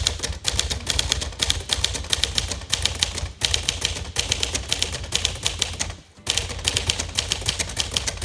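1954 Smith Corona Silent Super manual typewriter being typed on briskly: a fast, even run of key and typebar strikes, several a second, with two short breaks about three and six seconds in.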